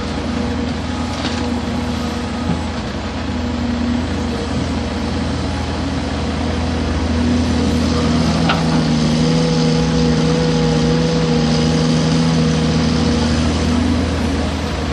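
Caterpillar 336 excavator's diesel engine running steadily, growing louder about seven seconds in, with a short click partway through.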